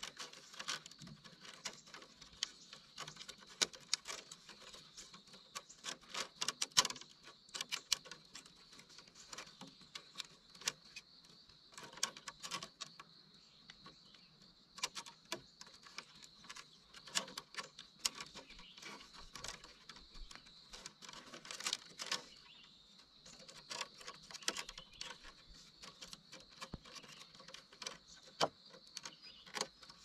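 Thin split-bamboo strips clicking and rattling lightly against one another as they are handled and woven into a bundle, in irregular small taps.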